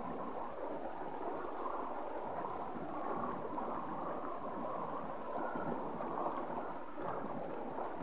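Shallow rocky stream flowing over stones and small riffles: a steady, even rushing and babbling of water.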